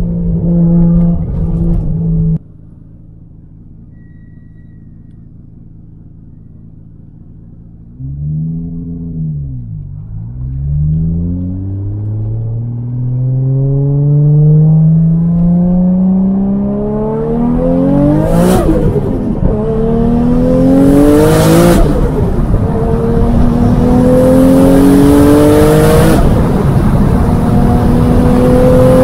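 Nissan R33 GTR's twin-turbo RB26 straight-six on a Tomei titanium exhaust, pulling hard through the gears. After a sudden cut to a low steady drone, the engine note picks up about eight seconds in, dips once, then climbs for several seconds at a time. The climb breaks with a short crack at three gear changes, the last one near the end.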